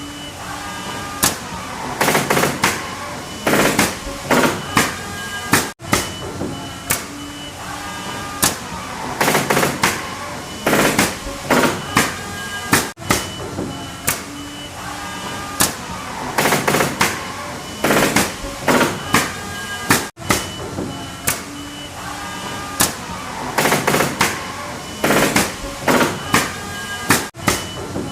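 Pneumatic nail gun firing nails into wood: clusters of four or five sharp shots over a steady background noise, the same sequence repeating about every seven seconds.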